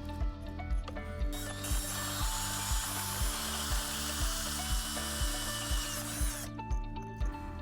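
Background music with a steady beat of about two beats a second. A steady hiss plays over it from about a second in until about six and a half seconds in.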